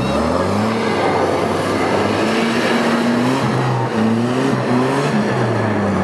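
Off-road 4x4's engine revving hard under load in mud, its pitch rising and falling several times as the throttle is worked.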